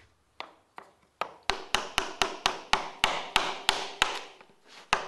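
A hammer striking a chisel again and again, cutting into a large structural timber. The taps come slowly at first, then about three to four a second, with a short pause near the end.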